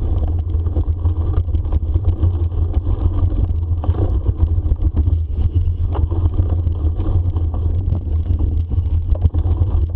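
Steady low wind rumble on the microphone of a bicycle moving along a rough forest trail, with frequent small rattles and knocks from the bike.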